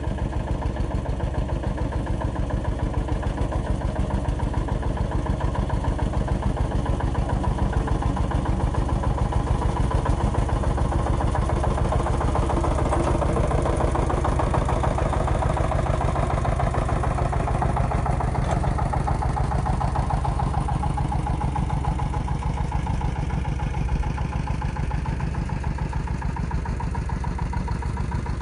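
Single-cylinder diesel engine of a two-wheel walk-behind tractor running steadily under way, with a rapid, even train of firing pulses, a little louder around the middle.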